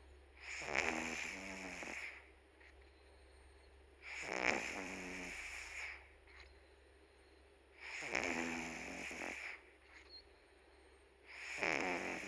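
Pet cat snoring in its sleep: four drawn-out snores, one about every four seconds, with quiet breaths in between.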